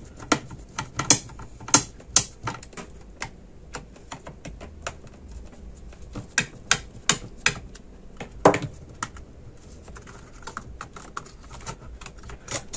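Irregular light clicks and taps, two or three a second, with one louder knock about eight and a half seconds in: a small screwdriver working the screws of a laptop's copper heatsink and fan assembly, and the metal parts being handled on the motherboard.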